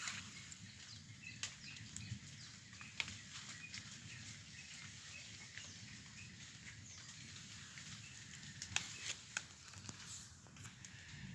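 Light rain pattering on wet ground and puddles: scattered drips and taps over a faint steady hiss, with a few sharper taps about nine seconds in.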